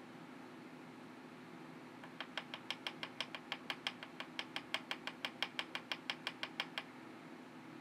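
A rapid, even series of light clicks, about six a second, starting about two seconds in and stopping near the end, over a faint steady hum.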